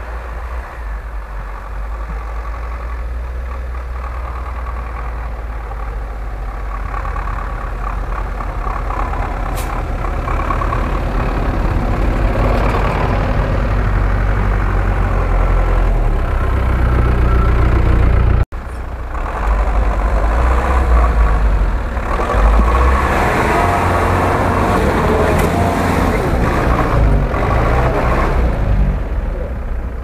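Off-road vehicle engines running in snow: a UAZ-469 approaching, growing steadily louder over the first half, then after a sudden cut a GAZ-66 truck's engine pulling hard, rising and falling as it churns through deep snow.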